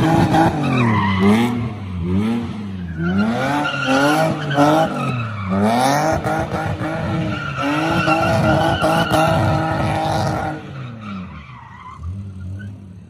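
BMW E30 drifting, its engine revving up and down over and over as the car slides, with tyres squealing on the tarmac. The sound fades away over the last couple of seconds.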